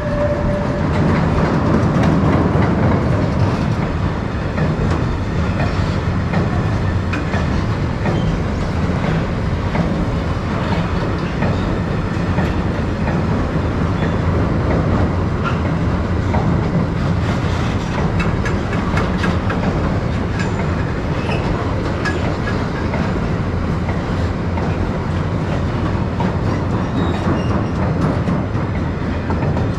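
Freight train rolling past: a steady, loud rumble of wagons with many wheel clicks over the rail joints.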